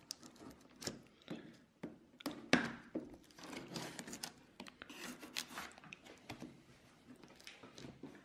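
Cardboard packaging being handled and opened: irregular knocks, rubs and scrapes, the loudest knock about two and a half seconds in.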